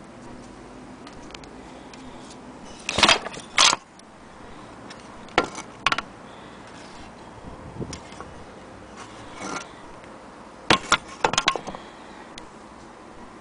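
Handling noises from a Singer 222K Featherweight sewing machine: sharp clicks and knocks of hard parts as the machine is moved and its parts are handled. They come in a pair about three seconds in, two more around five to six seconds, and a quick cluster about eleven seconds in.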